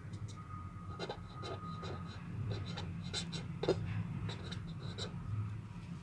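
A pen scratching on paper as a word is written by hand in short, irregular strokes, with one sharper tap of the pen a little past halfway. A steady low hum runs underneath.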